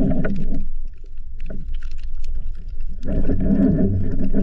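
Muffled water sloshing over a steady low rumble, swelling at the start and again near the end, with scattered faint clicks.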